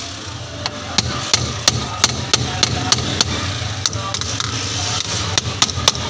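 Hammer tapping on the sheet-metal cabinet of a fridge, quick light knocks about three a second, straightening dents in the body.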